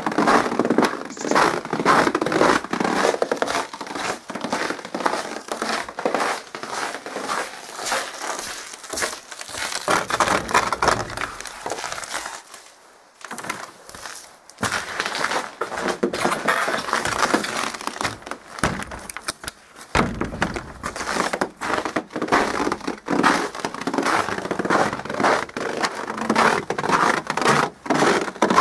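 Footsteps crunching through crisp snow on a wooden deck, a steady run of crunching steps that pauses briefly a little under halfway through.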